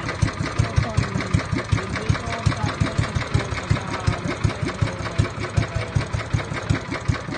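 The engine of an outrigger boat (bangka) running steadily under way, a regular low beat of about four pulses a second.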